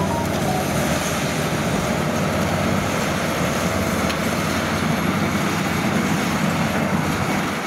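Kubota DC-70 rice combine harvester, modified for speed, running steadily while it cuts standing rice: a continuous engine drone under the noise of its working header and threshing parts.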